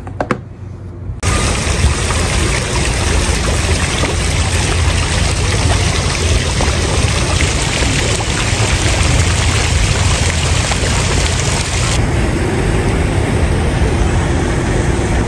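Outdoor water fountain's jets splashing: a loud, steady rush of falling water that starts suddenly about a second in.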